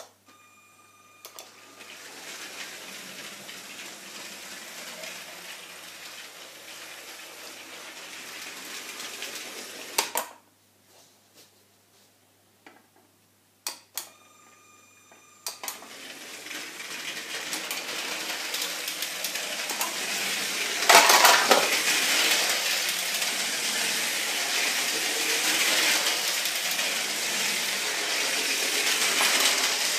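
LEGO Cargo Train 7939 running on its plastic track: the motor and wheels set up a steady rattling clatter. It stops suddenly about ten seconds in and is almost silent for a few seconds. After a short electronic beep it starts again and runs on, growing louder.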